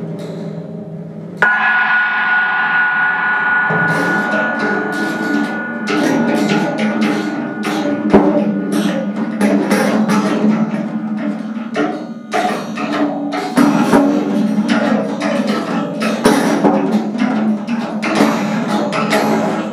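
Free-improvised solo playing on a prepared percussion set: dense, rapid strikes with sticks and mallets on drums and objects laid on the drumheads. About a second and a half in, one strike leaves a steady ringing tone that lasts several seconds under the clatter.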